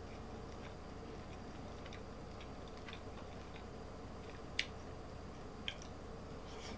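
A person eating close to the microphone: soft chewing with small scattered clicks, and two sharper clicks, one a little past halfway and one about a second later. A steady low hum sits underneath.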